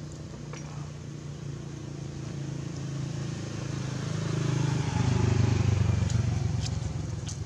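A motor vehicle passing on the road, its engine hum growing louder to a peak about five to six seconds in and then fading away.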